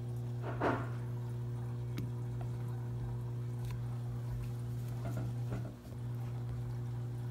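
A steady low electrical hum with several even tones. About a second in there is a short knock and scrape as a small die-cast model airliner is set down on a table, followed by a couple of faint clicks.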